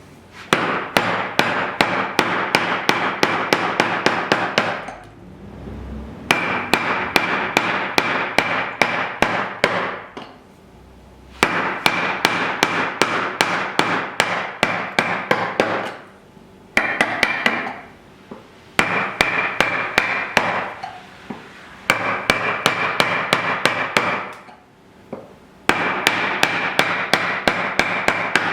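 Hand saw cutting into wood with quick, even strokes. The strokes come in bouts of a few seconds, broken by short pauses. A faint steady ring from the blade runs through each bout.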